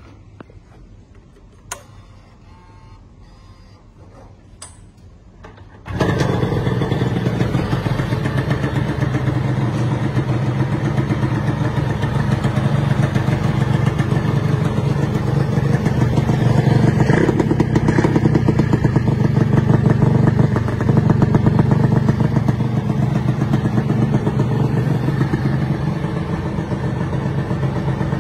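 Yamaha TZR125 two-stroke single-cylinder engine running through an aftermarket racing exhaust. After a few faint clicks it comes in abruptly about six seconds in and keeps running, a little louder through the middle stretch.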